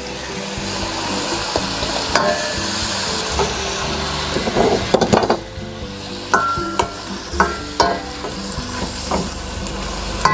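Mixed seafood sizzling as it hits hot butter and garlic in a stainless steel pan. A wooden spoon stirs it, knocking against the pan again and again, more often from about six seconds in.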